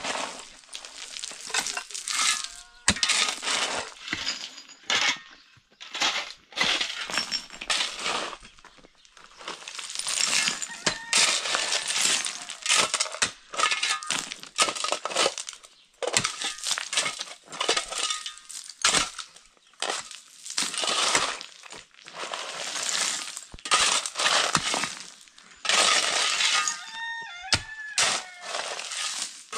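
A steel shovel and a pick digging into rocky, gravelly ground, with repeated scraping and crunching strokes as the blades bite through stones, and sharp clinks of metal on rock.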